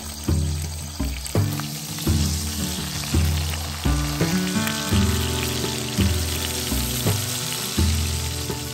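Bacon slices sizzling steadily in hot fat in a cast-iron skillet, over background music with slow, regular low notes.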